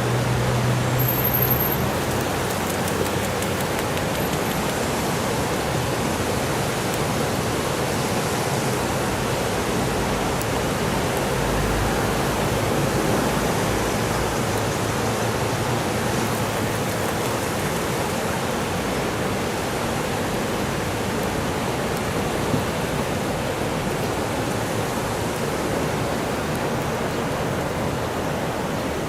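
Steady rush of floodwater pouring through a river sluice gate whose gates are fully open, releasing a rain-swollen lake at high water.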